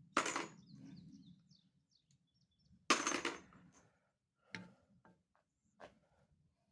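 Two shots from a Taurus 856 .38 Special snub-nose revolver, about two and a half seconds apart, each with a short echo. Two fainter sharp reports follow in the second half.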